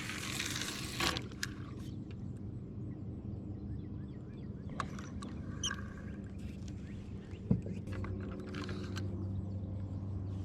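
Faint bird chirps over a steady low hum, with a brief rush of noise about a second in and a single sharp click about seven and a half seconds in.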